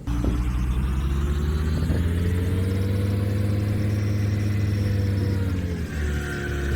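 Engine of the TIV 2 armoured tornado-intercept vehicle running steadily with a deep, even drone, its pitch easing slightly up and back, with a brief dip about six seconds in.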